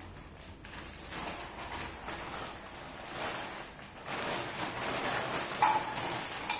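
Thin plastic bag crinkling and rustling as a monitor stand part is pulled out of it, with one sharp crackle about five and a half seconds in.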